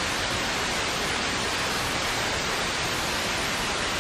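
Steady hiss of radio static, an even rushing noise with no tone or voice in it.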